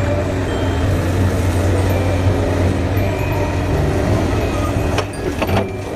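Diesel engine of a Liebherr HS crawler crane working a dragline bucket, running with a steady low drone. A few sharp knocks about five seconds in.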